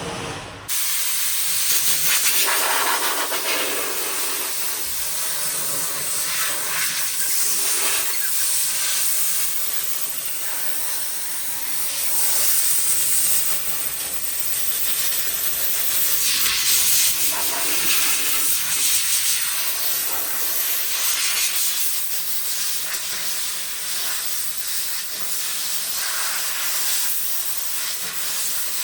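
Compressed air hissing from a paint spray gun, starting suddenly just under a second in and continuing with repeated swells and easings as the gun makes passes over the bumper.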